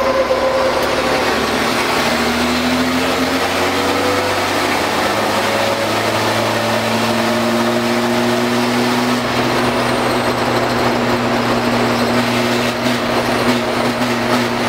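Mercedes-Benz truck's diesel engine running under way, heard from inside the cab. Its note changes about two seconds in, then holds at nearly steady revs, with road and wind noise underneath.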